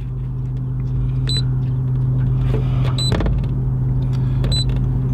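Boat motor idling steadily with a low hum. Three short high beeps sound about a second and a half apart.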